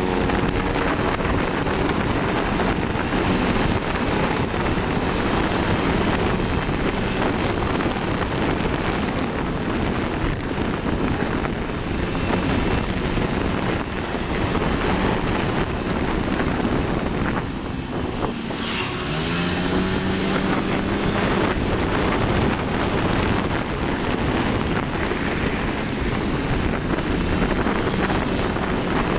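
Motorcycle being ridden at speed, wind buffeting the microphone over the engine. The engine note rises a little over halfway through as the bike picks up speed.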